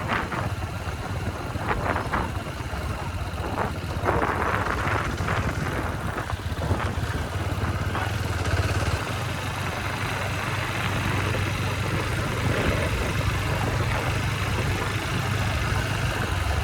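Motorcycle engine running steadily while riding along a road, a low even hum under rushing road and wind noise.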